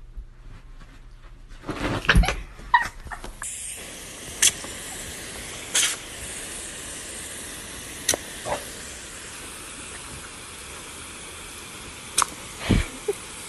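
Garden hose spray nozzle hissing steadily as a dog bites at the water jet, starting about three seconds in, with several sharp clicks over the hiss. Just before the spray starts, a short run of loud knocks.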